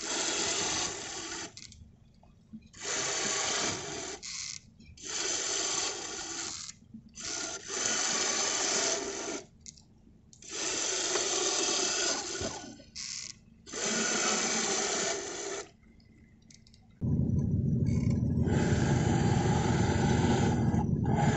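Electric tiller-pilot ram driving the tiller hard one way and then the other, its motor running in about six bursts of one to two seconds with short pauses between: the autopilot is steering S-turns in its auto-learn calibration. From about 17 seconds in, a steady low rumble takes over.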